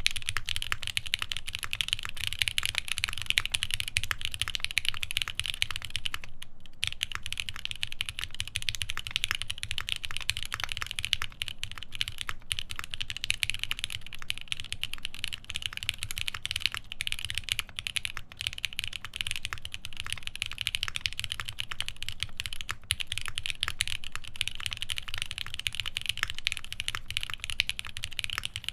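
Continuous fast typing on a Palmetto mechanical keyboard with lubed Alpaca v2 linear switches, a half FR4 plate and GMK keycaps: a dense stream of keystrokes, with a brief pause about six seconds in.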